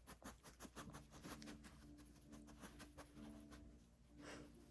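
Near silence, with faint rustling and sniffing from a dog nosing through towels for hidden kibble.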